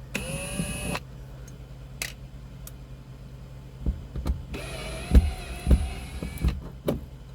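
Cordless drill-driver backing out a headliner screw: its motor whines for about a second, stops, then runs again for about two seconds, with a few sharp clicks in between.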